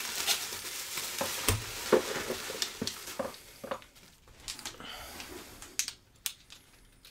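Plastic bubble wrap crinkling and rustling as hands dig through it in a cardboard box. About halfway through the crinkling thins out, leaving a few sharp clicks and clinks as two padlocks with their keys are lifted out and handled.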